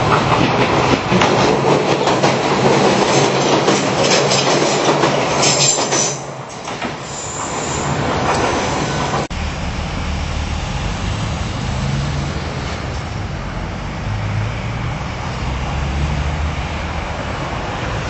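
An Izu-Hakone Railway Sunzu Line electric train passing close by, wheels clattering over the rail joints. About nine seconds in the sound cuts off abruptly to a steadier, lower background rumble.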